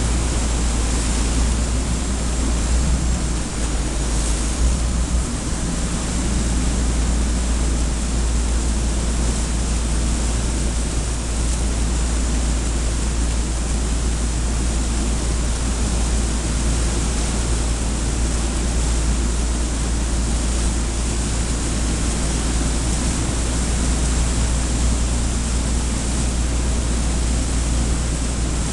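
Steady rush of water churning between a fast boat's hull and the side of a large ship, over a deep steady rumble, with no breaks or distinct events.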